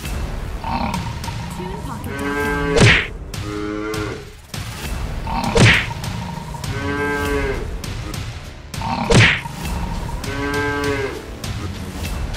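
Cartoon sound effects of cattle bellowing, four or five drawn-out moo calls, cut by three loud, sharp hits about three and a half seconds apart, over a steady low rumble.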